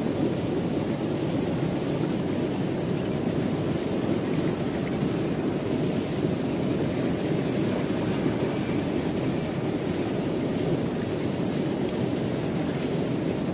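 Steady rushing of a swift, muddy river current flowing past the bank.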